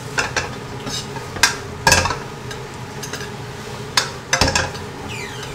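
Metal spatula scraping and clanking against a wok as cabbage is stir-fried over a steady sizzle, with several sharper knocks as the food is tossed.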